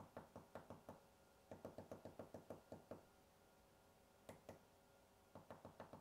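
Faint clicking of the push buttons on a small handheld drone remote control, pressed in quick runs of about five or six presses a second with short pauses between runs, as the camera menu is stepped through.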